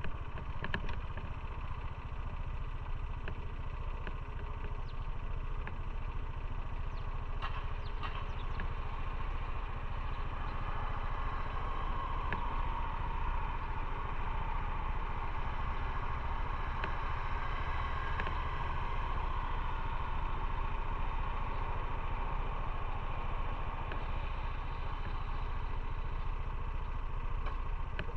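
Motorcycle riding along the road, its engine running steadily over a low rumble, the tone swelling a little in the middle and easing off again.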